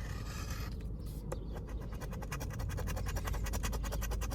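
A $215 Million Cash Explosion scratch-off lottery ticket being scratched off: a rapid run of short scraping strokes, many per second, that picks up about a second and a half in.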